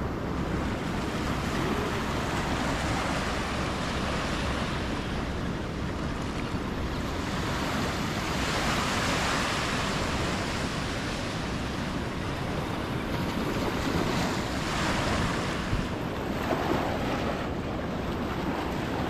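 Small waves washing onto a sandy shore, one wash swelling louder about nine seconds in, with wind rumbling on the microphone.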